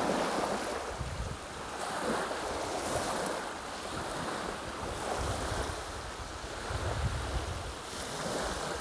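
Small lake waves washing steadily onto a sandy shore, with gusts of wind rumbling on the microphone.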